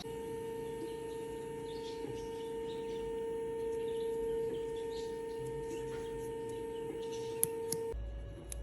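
A steady, unwavering tone held for about eight seconds, then cut off suddenly near the end.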